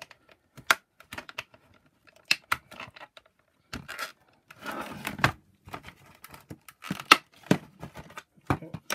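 Sharp plastic clicks and knocks, with a rustling scrape about five seconds in, as gloved hands pry apart a Shark Rocket power nozzle's plastic housing and work its small motor free.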